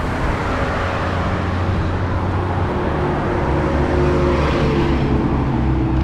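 Traffic on the BR-101 highway: vehicles passing close by in a continuous rush that swells and fades, over a steady low engine drone.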